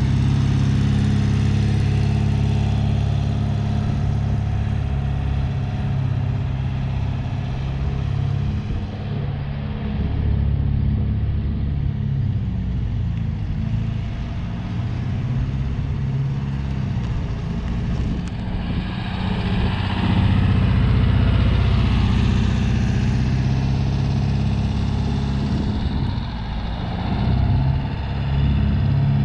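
A 1973 VW Westfalia Campmobile's air-cooled flat-four engine running as the van drives around. It grows fainter about a third of the way in, then swells to its loudest about two-thirds through as the van comes near again.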